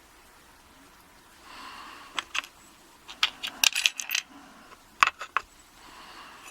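Small metal parts of an American A1100 padlock being disassembled by hand, making sharp metallic clicks and taps. It is quiet for the first second and a half, then the clicks come in a scattered run, thickest around the middle, with a few more about five seconds in.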